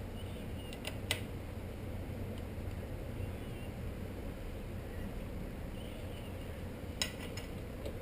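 Light metallic clinks of hand tools against bicycle crank parts, a few scattered taps with the clearest about a second in and a small cluster near the end, over a steady low hum.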